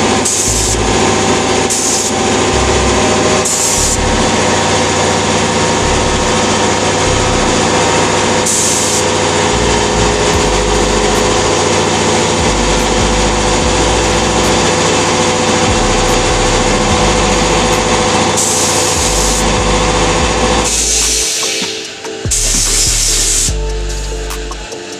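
Compressed-air spray gun hissing steadily as it sprays paint, with background music underneath. The hiss stops about 21 seconds in, comes back briefly, and leaves the music on its own near the end.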